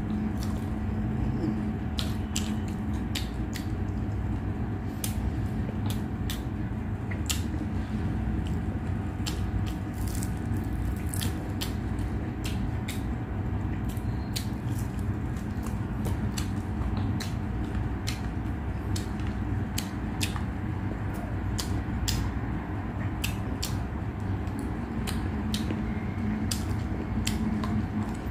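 Close-miked eating sounds: chewing, with short sharp crunchy clicks and mouth smacks at irregular intervals, over a steady low hum.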